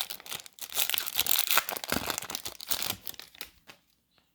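Foil wrapper of a Pokémon trading-card booster pack crinkling and tearing as it is ripped open, a dense crackle that dies away about three seconds in.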